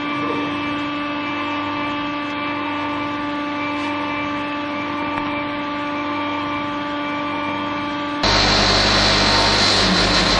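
Steady machine hum with one strong pitched tone and fainter overtones. About eight seconds in it cuts off abruptly to a louder, rougher machine noise.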